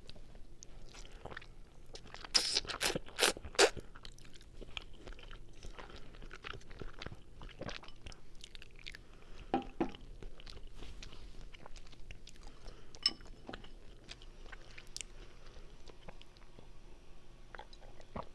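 Close-miked chewing and biting of linguine carbonara: wet mouth clicks throughout, with a burst of four or five loud sharp crunching snaps about two to four seconds in and a couple more later.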